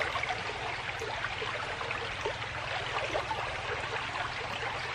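Fast, muddy stream running high after days of rain, its water rushing and splashing over rocks in a steady babble.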